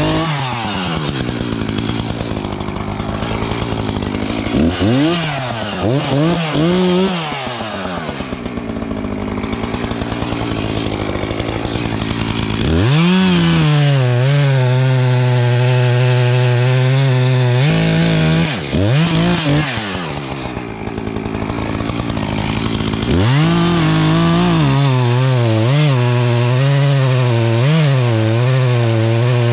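Echo two-stroke chainsaw running, blipped up and down a few times, then held at steady high revs for several seconds about halfway through. It drops back with a couple more quick blips and then runs at steady high revs again through the last few seconds.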